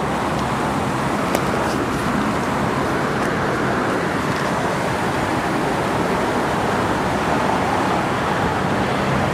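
Steady road traffic noise from passing cars on a busy street, an even wash of sound with no distinct events.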